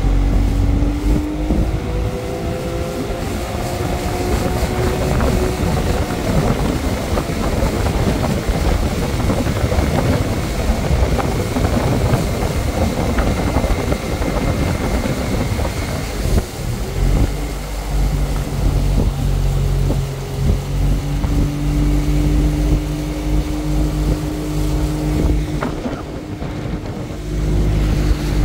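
1984 Johnson 70 hp three-cylinder two-stroke outboard running under way. Its pitch shifts a little in the first few seconds and then holds steady, over the continuous rush of water from the wake.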